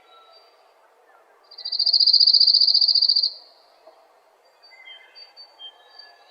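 Birdsong ambience of faint, high chirps and short whistled notes. About a second and a half in, one loud, high, rapid trill lasts nearly two seconds.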